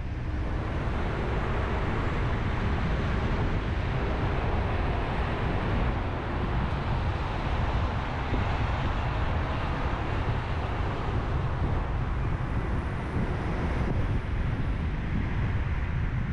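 Car driving: steady road noise, a low rumble with an even hiss over it.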